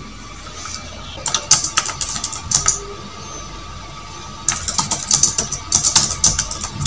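Two runs of quick, irregular light clicks, the first starting about a second in and the second about four and a half seconds in. A faint steady tone sounds underneath.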